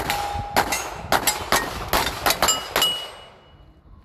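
A string of about ten handgun shots in quick succession, with steel targets ringing after several of the hits. The firing stops about three seconds in.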